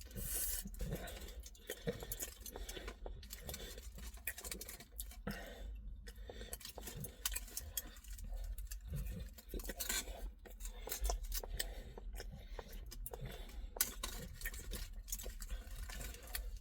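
Someone eating a beef kebab in a bun: chewing and handling the food, with many irregular small clicks and knocks.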